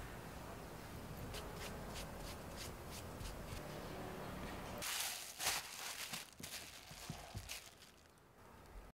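Hands folding a sheet of puff pastry dough in thirds on a wooden board: soft rubbing with faint light taps, and a louder rustle with clicks about five seconds in as the dough is lifted.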